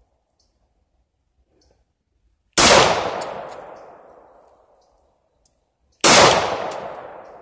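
Two 9mm pistol shots from a Glock 19X, about three and a half seconds apart, each sharp crack trailing off slowly over about two seconds.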